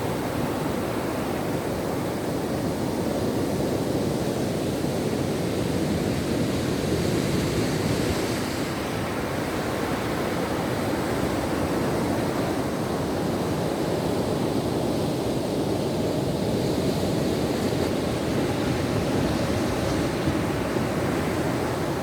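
Ocean surf washing onto a shore: a continuous rush of breaking waves that swells and eases gently.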